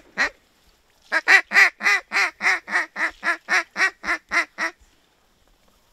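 Duck call sounding a long hail-style run of quacks: about fourteen loud notes at roughly four a second, stopping a little before five seconds in.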